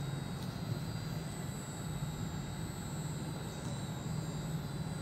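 Cummins 6BTA5.9 turbocharged inline-six diesel engine of a fire pump set, running steadily with an even low drone.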